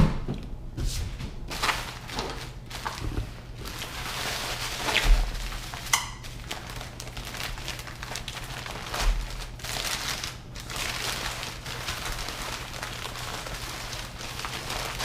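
Packing paper rustling and crinkling while a parcel is unwrapped by hand, with a few light thumps and knocks.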